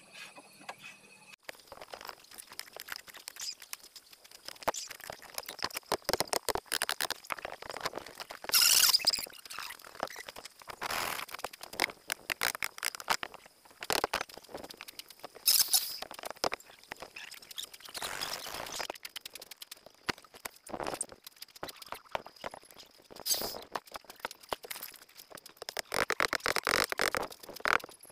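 Hand-tool work on a wooden boat hull: irregular knocks, clatter and scraping of tools against wood, with a few louder scrapes, over a faint steady high tone.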